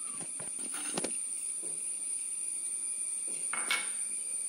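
Quiet kitchen handling sounds as a small glass of oil and a steel mixer-grinder jar are moved on the counter: a light knock about a second in and a short scrape near the end. A faint steady high whine lies underneath. The mixer motor is not running.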